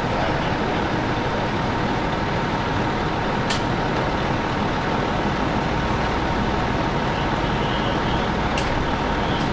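Steady rumble of idling vehicle engines and street traffic, with a faint steady whine. Two short sharp clicks stand out, one about three and a half seconds in and one near the end.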